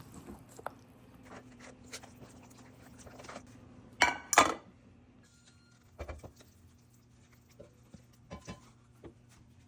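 Kitchen utensils clinking and knocking against cookware, with two sharp ringing metal knocks about four seconds in, over a steady low hum.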